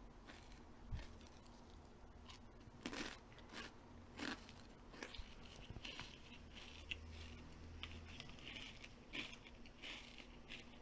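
Faint, close-up crunching and chewing: a series of short crisp crunches as food is bitten and chewed, spaced irregularly.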